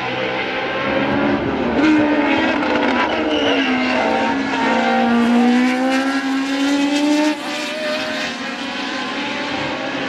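Historic Formula 1 cars' racing engines at high revs as they pass. The pitch dips, then climbs steadily as one accelerates, and the sound drops away abruptly about seven seconds in.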